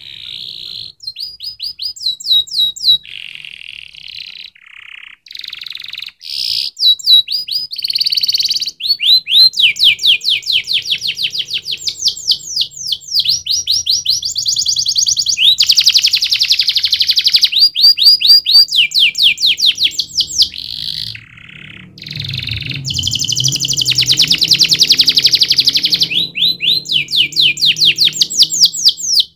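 Canary singing: rapid rolls of repeated notes, switching every second or two between higher and lower rolls and brief trills, with hardly a pause.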